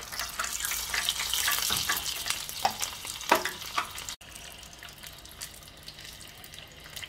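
Batter-coated prawn deep-frying in hot oil in a saucepan: a dense, loud sizzle and crackle with a few sharp pops. About four seconds in, it drops abruptly to a much quieter, fainter crackle.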